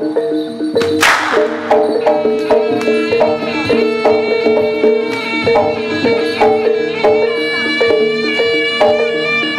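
Live Javanese jaranan accompaniment: a gamelan-style ensemble of repeated ringing struck notes and drums under a reedy wind-instrument melody, typical of the slompret shawm. A loud sharp crack cuts through about a second in.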